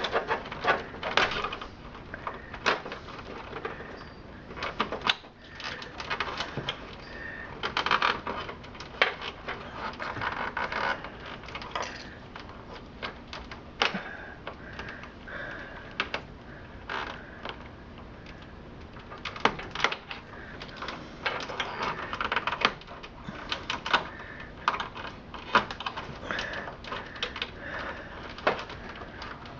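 Hands working cables loose inside a desktop computer case: irregular plastic clicks, taps and rustling scrapes.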